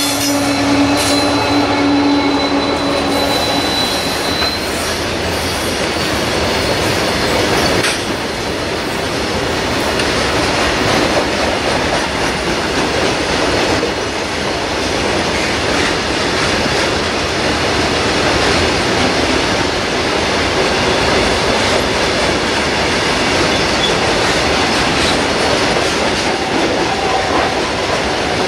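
WDG-4 (EMD GT46MAC) diesel locomotive passing close, its 16-cylinder two-stroke engine droning with a high whine, both fading out about four seconds in. After that comes a long, steady rush of loaded flat wagons rolling by, their wheels running on the rails.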